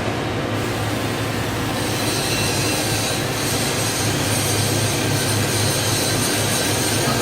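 Steady machine noise: a continuous low hum under an even hiss, without a break.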